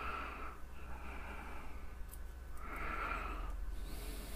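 A man breathing audibly through his nose close to the microphone, three soft breaths, over a steady low hum.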